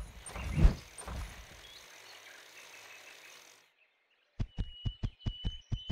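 Cartoon sound effects: a few thuds and a hiss that fades out in the first seconds, then after a short silence a rapid, even run of mechanical thuds, about six a second, under a thin high steady beep, for the sawblade logging robot moving in.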